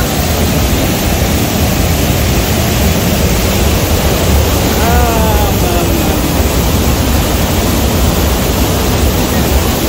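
Loud, steady rush of water falling over rocks, with a person's short call about five seconds in.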